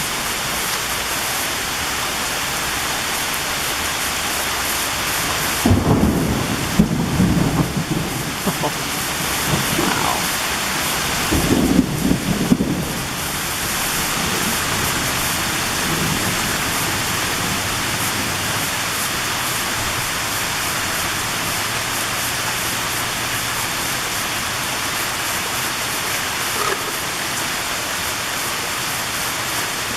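Heavy summer downpour pouring steadily, with two rolls of thunder rumbling through it, about six and twelve seconds in.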